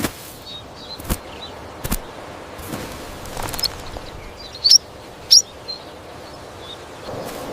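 Outdoor ambience with a few sharp clicks in the first few seconds, then two short, high bird chirps a little over half a second apart, about five seconds in.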